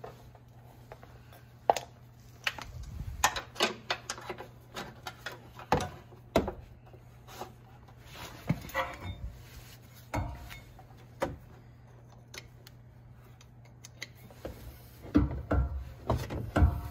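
Scattered metal clicks, clinks and knocks of hands and tools working a brake-line bracket loose from a front strut, with a thicker run of knocks near the end.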